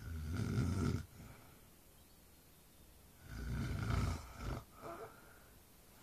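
A man snoring: two long snores about three seconds apart, one in the first second and one a little past the middle, the second followed by a short, trailing breath.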